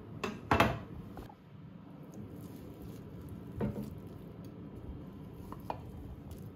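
A plastic spatula knocking and scraping against a glass baking dish as a slice of baked cheese and potato pie is lifted out. There is a sharp double knock about half a second in, which is the loudest sound, another knock a little past the middle, and a light click near the end.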